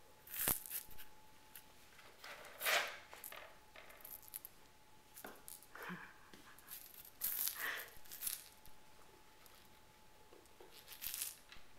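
Intermittent rustling and scraping close to the microphone, with a sharp click about half a second in, over a faint steady thin tone.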